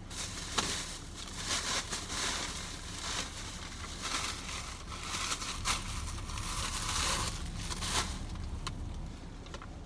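Thin plastic bag crinkling and rustling as a hand rummages through it, a continuous crackle with scattered louder crunches.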